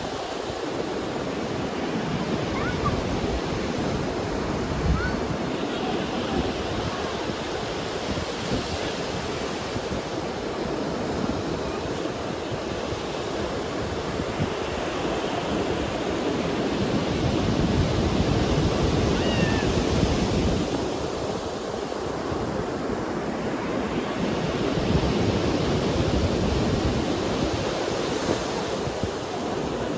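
Ocean waves breaking and washing on a beach, a steady surf that swells and eases slowly over several seconds, with gusts of wind on the microphone.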